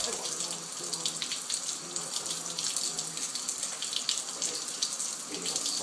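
Kitchen faucet running a steady thin stream into a sink: a continuous splashing hiss with many small spatters.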